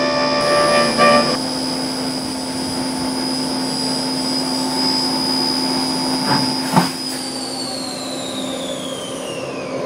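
CNC vertical milling machine running a porting program on a throttle body: steady high spindle whine over the hiss of the coolant spray, with a set of cutting tones that stops about a second in. Near the end there is a click and the whine falls steadily in pitch as the spindle slows down after the cut.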